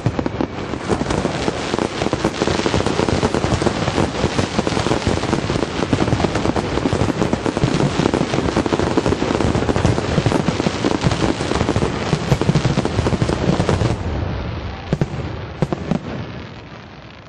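Finale of a professional fireworks display: aerial shells bursting in fast, overlapping succession, with bangs and crackle packed together. About 14 seconds in the barrage thins out to a couple of last bangs and fades away.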